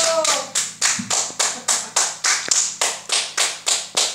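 Hand claps in a steady beat, about four claps a second.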